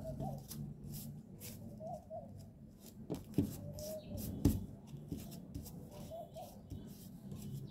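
Hands folding and pressing glued fabric and paper flat on a tabletop: light rustling and scraping, with two small knocks against the table about three and a half and four and a half seconds in.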